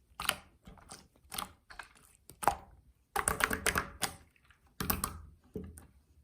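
Clear slime being pressed and squished by hand, making sharp sticky clicks and pops. They come singly at first, then in a quick crackling run about three seconds in and another cluster near five seconds.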